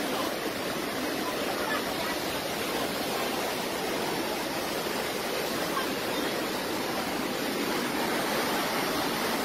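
Muddy floodwater rushing in a fast torrent, a steady unbroken rush of noise.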